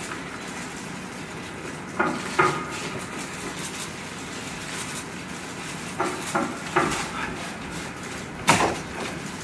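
Sharp metallic clanks over a steady hum: a pair about two seconds in, three more about six seconds in, and the loudest near the end.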